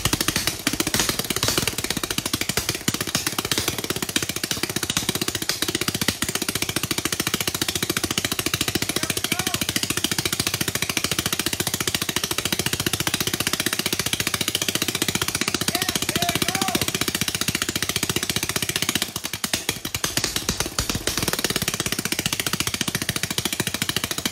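Homemade 3D-printed single-cylinder four-stroke spark-ignition engine running fast after a rope-pull start, a rapid, steady stream of firing pulses. It falters briefly about three-quarters of the way through, then picks up again.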